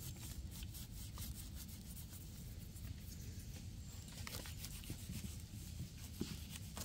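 Faint scraping and rubbing with scattered small clicks: a knife trimming and scraping dirt off the base of a hen of the woods mushroom cluster.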